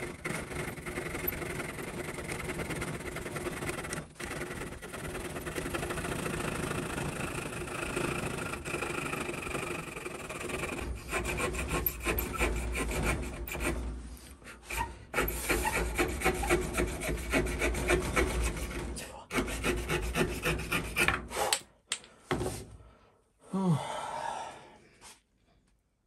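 Pocket-knife folding saw blade cutting through a wooden stick held in a vise: continuous back-and-forth rasping strokes that get heavier in the second half. The sawing stops about 21 seconds in, followed by a few knocks and handling sounds.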